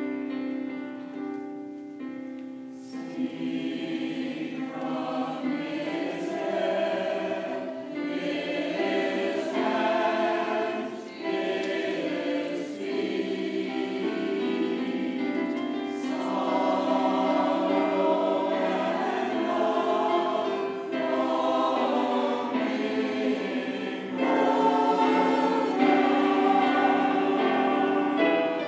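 Mixed church choir of men and women singing, coming in about three seconds in.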